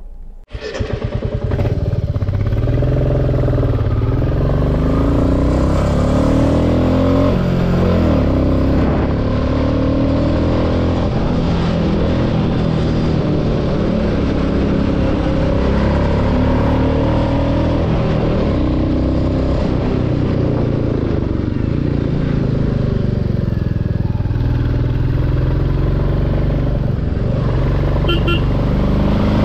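Royal Enfield Classic 350's single-cylinder engine, with about 35,000 km on it, running under way. The sound comes in about a second in, and the revs rise and fall again and again as the bike is ridden.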